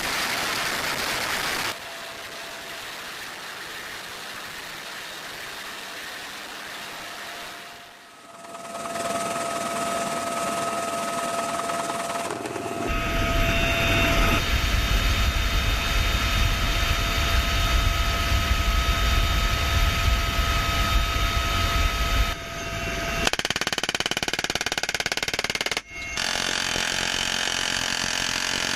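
UH-1Y Venom helicopter running, with a steady turbine whine over rotor noise. The sound changes abruptly several times, and a heavy low rumble takes over for about ten seconds in the middle.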